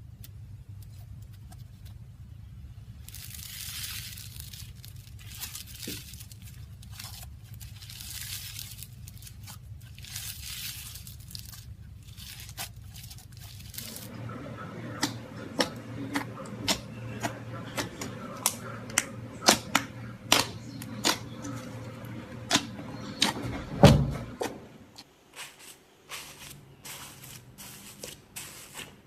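Slime being played with by hand: soft tearing and stretching noises in the first half, then a run of sharp pops and clicks, several a second, as it is squished and pressed, with one louder thump near the end.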